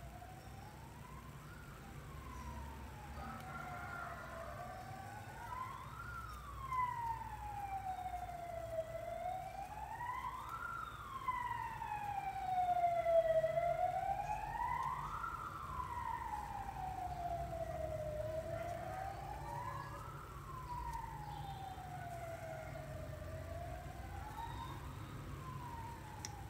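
A siren wailing, its pitch rising sharply and sliding back down about every four and a half seconds, loudest about halfway through, over a low steady rumble.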